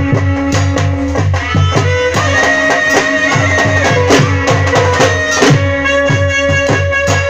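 Dhak drums beaten with sticks in a fast, even rhythm, each stroke a booming note that drops in pitch, joined by a dhol and the bright clang of a kashi struck with a stick. Trumpets play a held melody over the drumming.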